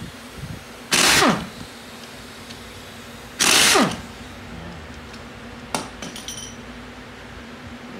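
Pneumatic impact wrench run in two short bursts of about half a second each, hissing air with its motor winding down in pitch as the trigger is let go, as it spins out the oil pump bolts of a ZF 8HP automatic transmission. A single sharp metallic click a couple of seconds after the second burst.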